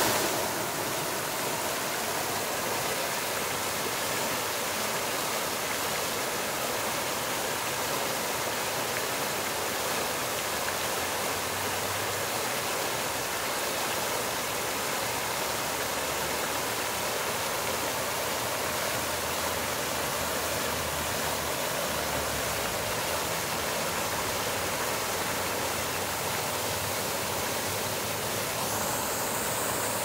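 Fountain jets shooting up and splashing down into a water basin: a steady, even rush of falling water.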